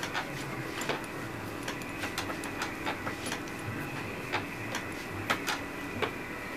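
Irregular small clicks and rustling of copper braid strands from a coax cable being twisted together between the fingers into a single wire, over a faint steady hum.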